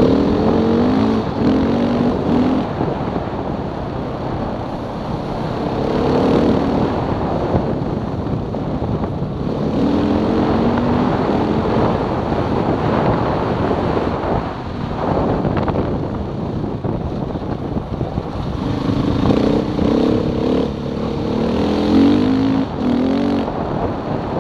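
Motorcycle engine riding along a gravel track, its pitch climbing in steps and dropping again several times as it accelerates and shifts gears, over a steady rush of wind and tyre noise.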